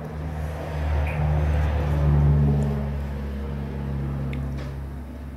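A low engine hum that grows louder over the first two seconds and then slowly fades away, like a motor vehicle going by.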